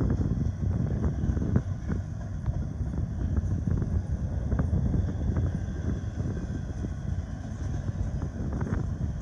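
Double-stack intermodal freight cars of a Norfolk Southern train rolling past: a steady low rumble of steel wheels on rail, broken by irregular clicks and clanks.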